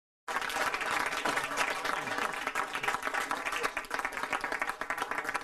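Audience applause, starting abruptly about a quarter of a second in after dead silence and continuing at a steady level.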